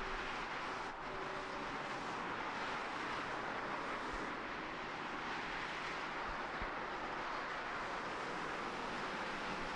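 Steady, even background hiss of ambient noise, with no distinct events.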